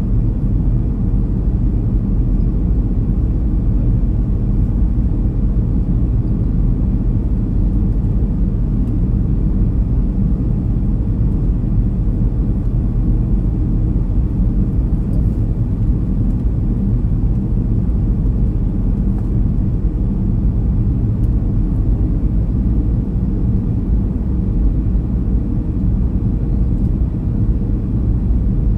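Steady low drone of engine and air noise inside the cabin of a Boeing 737-300 airliner in flight, its CFM56-3 engines running evenly.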